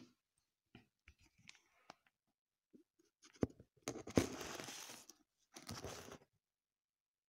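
Camera handling noise on a tiled floor: scattered small clicks, a sharp knock about three and a half seconds in, then two bursts of scraping and rustling as the phone is set down and shifted.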